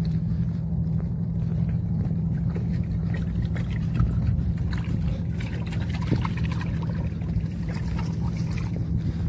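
A steady low mechanical hum and rumble, with a couple of light knocks about four and six seconds in.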